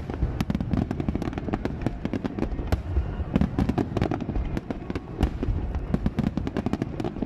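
Aerial fireworks bursting in a rapid, continuous barrage: many sharp cracks and bangs in quick succession over a low rumble.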